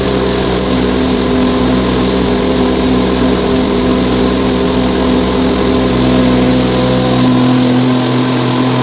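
Posho mill running while grinding maize: a steady mechanical drone, its low hum shifting in pitch about seven seconds in.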